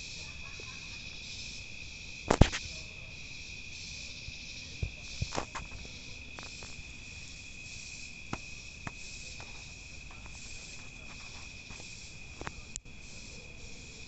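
Night insect chorus: a steady high trill with a pulsing hiss above it. A few sharp clicks and knocks break through, the loudest about two seconds in and others near the middle and end.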